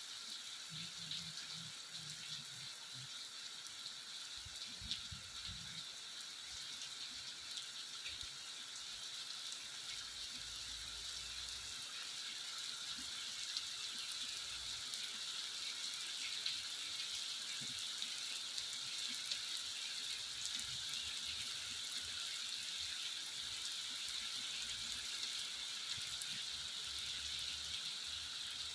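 Heavy rain falling steadily on a wet asphalt road, an even hiss of countless drops that grows a little louder after about ten seconds.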